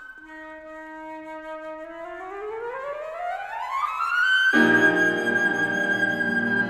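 Concert flute holds a low note, then rises in a quick upward sweep of about two octaves and swells to a long high note. As it lands, about four and a half seconds in, the grand piano comes in with a full, loud chord beneath it.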